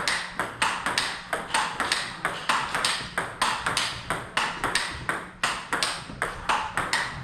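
Table tennis rally: the ball clicks off rubber-faced paddles and bounces on the table in a fast, steady rhythm of several sharp hits a second.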